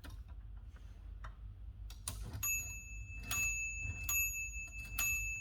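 Olivetti MP1 portable typewriter worked key stroke by key stroke, sharp mechanical clicks about once a second, and about halfway through its carriage bell rings and keeps ringing while further strokes follow. The bell marks the carriage nearing the margin, where the margin bypass lets typing run past it.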